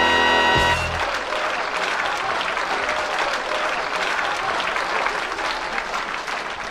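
A band's held closing chord cuts off within the first second, then an audience applauds steadily, slowly fading.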